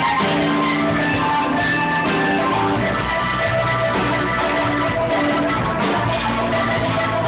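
Live band playing, led by electric guitar with bass guitar underneath, with steady held notes and no break.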